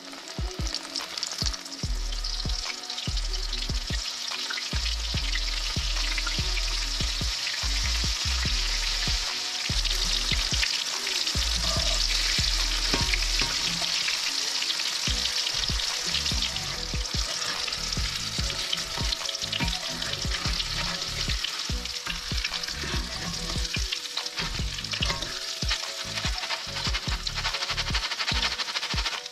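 Battered shrimp frying in hot oil in a cast iron skillet: a steady sizzle with many small crackling pops, a little louder around the middle.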